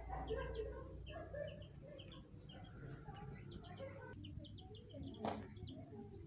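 Baby chicks peeping over and over in short, high cheeps. A single sharp knock sounds about five seconds in.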